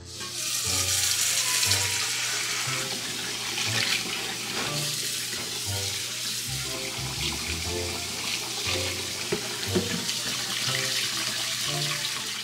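Kitchen tap running hard into a stainless steel bowl and colander in a steel sink, the water splashing. Boiled buckwheat noodles are tipped in from a wok and rinsed under the stream. Background music plays underneath.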